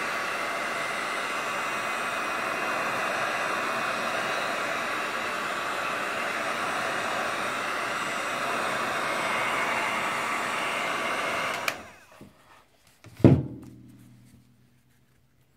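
Small handheld heat gun blowing steadily at the EVA foam, then switched off about twelve seconds in. A single thump follows a second and a half later.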